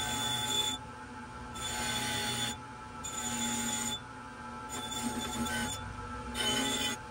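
Bench grinder's wire wheel scrubbing the steel head of a hand-forged brush axe, in about five passes a second or so long. Between passes the grinder motor's steady whine carries on.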